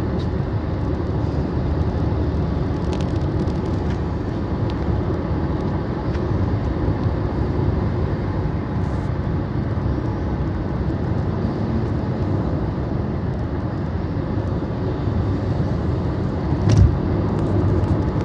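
Steady low rumble of tyre and engine noise inside the cabin of a moving car, with one short thump near the end.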